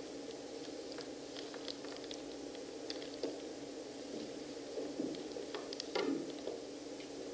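Light, scattered clicks and taps of hands handling the pomegranates on a plastic sheet, with a short rustle about six seconds in, over a steady low hum.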